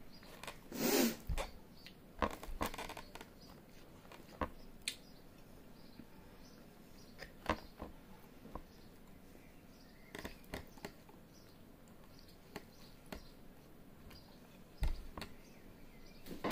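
Pizza being torn apart and chewed: scattered soft crackles and clicks, with a longer crackling tear about a second in.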